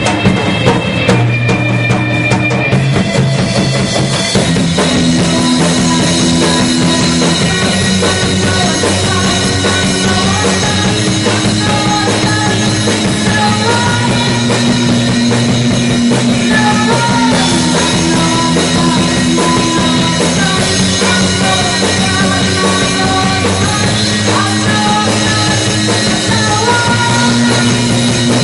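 A rock band playing live at rehearsal: drum kit under held bass and guitar notes, with a bending melody line above, steady and loud.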